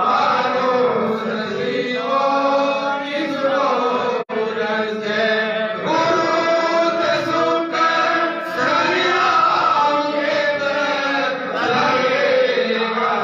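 Voices chanting a Hindu aarti to the goddess, a continuous devotional sung chant. It cuts out for an instant about four seconds in.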